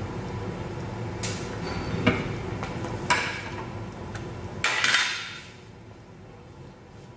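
Plastic clicks, knocks and clatter from a hand-crank vegetable spiralizer as its blade insert is pulled out and handled. There is a louder, half-second scraping rattle near the end.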